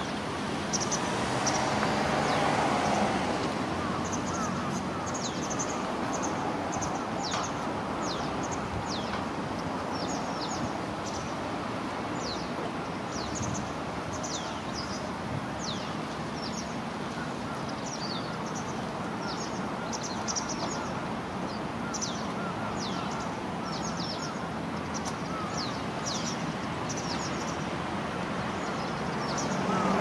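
A flock of Japanese pied wagtails (white wagtail, Motacilla alba lugens) calling to one another at their communal roost, with many short, high, sharp calls in quick succession. Steady low background noise lies underneath and swells for a few seconds near the start.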